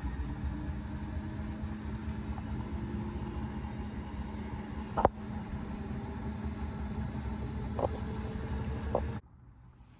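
LG ThinQ front-loading washer-dryer running a wash with a queen-size duvet in the drum: a steady low rumble and hum of the turning drum, with one sharp knock about five seconds in and a couple of lighter clicks later. The sound cuts off suddenly near the end.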